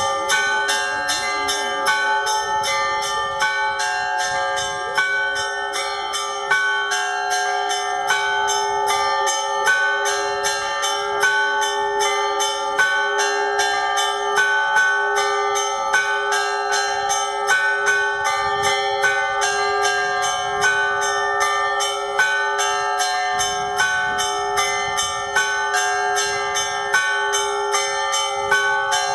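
Russian Orthodox church bells rung in a festal peal: small bells struck quickly and evenly, about four strikes a second, over the steady ringing of the larger bells.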